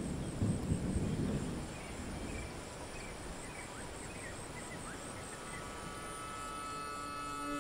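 Outdoor nature ambience: a steady hiss with a pulsing high insect trill and scattered short bird chirps, and a low rumble in the first second or so. Soft sustained music tones fade in near the end.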